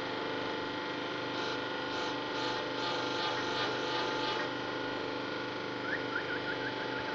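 Homemade hydraulic manipulator running with a steady machine hum. A quick series of hissing pulses, about three a second, starts about a second in and stops past the middle. A run of short rising squeaks sounds near the end.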